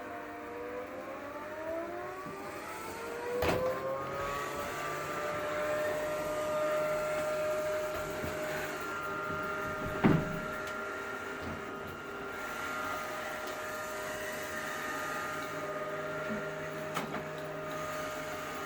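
Off-brand robot vacuum running: its motor whine rises in pitch over the first few seconds, then holds steady over a hiss of suction. A sharp knock comes about three and a half seconds in, a louder thump about ten seconds in, and a faint tick near the end.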